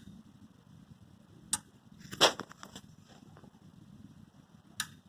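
Cooler Master V650 power supply clicking after the computer has been shut down, the fault the owner is showing. Single sharp clicks come a few seconds apart, with a louder quick run of clicks about two seconds in.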